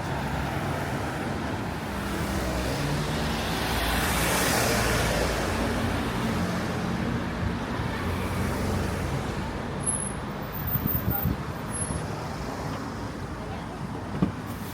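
A motor vehicle passing by. Its noise swells to a peak about four to five seconds in, then fades, leaving steady street noise with a few small knocks near the end.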